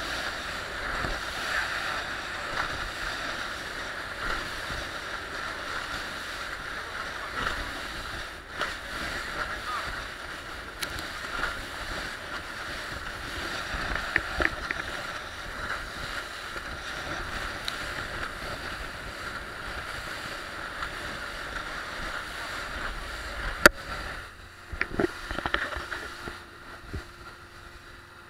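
Open motor boat running at speed over choppy sea: a steady rush of engine and water noise. Near the end a sharp click, then the rush drops to a quieter level.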